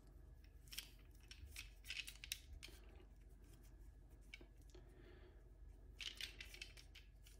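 Faint handling noise of a fur windscreen being worked onto a small shotgun microphone: soft rustles and small clicks, a little louder around two seconds in and again near six seconds.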